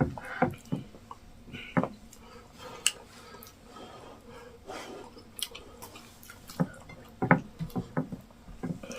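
Close-up eating sounds of plantain fufu with egusi soup: wet chewing and mouth sounds in short, irregular bursts.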